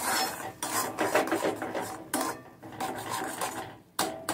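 A flat spatula scraping and stirring a thick ground flat-bean paste around a metal kadai, in a run of irregular rasping strokes.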